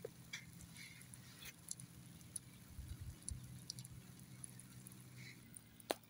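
Thin stream of water splashing faintly onto sand and a plastic hose, with scattered light ticks and a sharp click near the end, over a low steady hum.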